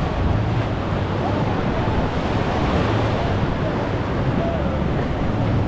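River rapids: whitewater rushing steadily around the boat, with wind buffeting the microphone.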